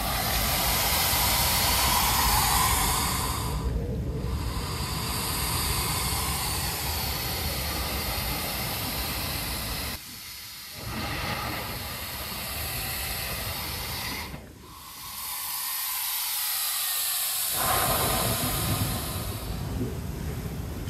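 Blowhole in coastal lava rock hissing as air and sea spray rush out of it, over the wash of surf. The hiss drops away twice, briefly about halfway through and for about three seconds later on, then surges back.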